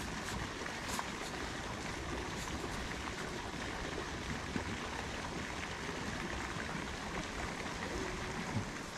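Steady rushing water, an even hiss that stays level throughout, with a couple of faint clicks.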